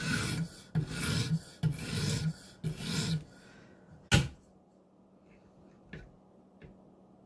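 Coarse 80-grit diamond sharpening stone rasping against a Maxamet steel knife bevel in four strokes, roughly one a second. The strokes stop, a single sharp knock follows, then two faint clicks.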